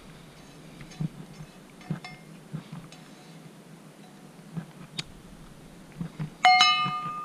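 Faint taps of eating utensils, then about six and a half seconds in two quick clinks of a utensil against a metal bowl, leaving a bright bell-like ring that hangs on for over a second.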